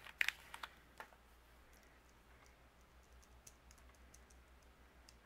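Faint clicks and taps of small paper die-cuts and a glue bottle being handled on a craft mat: a few sharper clicks in the first second, then scattered faint ticks.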